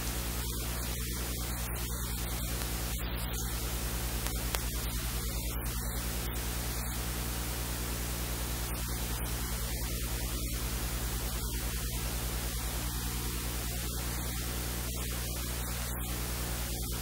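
Steady hiss with a low, even electrical hum, the background noise of the recording itself. A single short click about four and a half seconds in.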